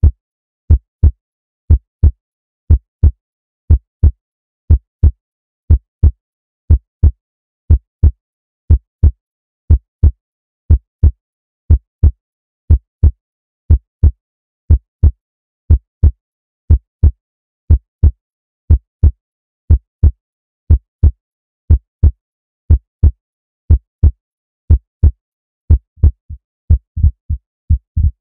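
Heartbeat sound effect: low paired lub-dub thumps repeating steadily about once a second. Near the end, extra softer beats come in and the rhythm quickens.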